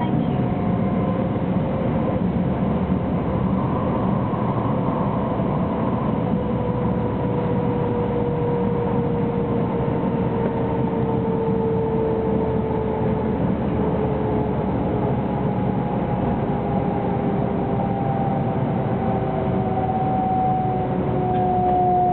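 300 series Shinkansen running noise heard from inside the car: a steady rumble of wheels and track, with a whine from the traction motors whose pitch slowly falls as the train slows on the approach to its next stop.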